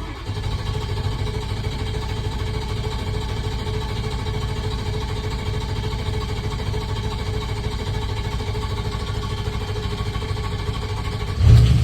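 2006 Ford 6.0 L Power Stroke V8 turbodiesel starting and running with a loud grinding rattle, a fault the owner traced to the starter. The engine catches at once and runs steadily, with a brief louder surge near the end.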